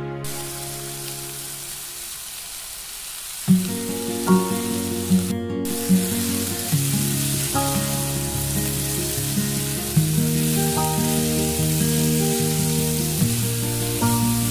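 Chopped vegetables and spices sizzling in a frying pan as they are stirred with a spatula, under background music with a melody in short stepping notes.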